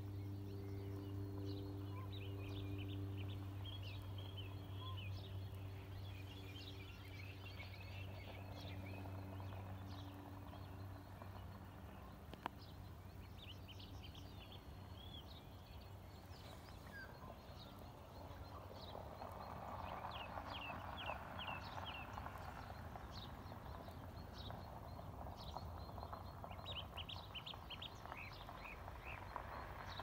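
Morning birdsong: many small birds chirping and trilling in short, high calls. A steady low hum sits under them at first and fades out in the first third, and a soft rushing noise rises in the second half.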